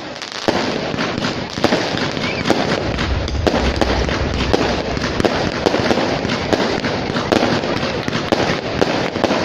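Fireworks display: shells bursting in a rapid, irregular run of bangs and crackle, several a second, over a continuous hiss, with a deeper rumble for a second or so near the middle.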